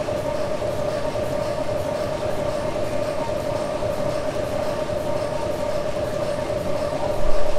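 1904 Sulzer tandem-compound steam engine driving a flywheel generator, running steadily: a steady whine over a dense mechanical rumble with faint regular ticks. A brief louder bump comes near the end.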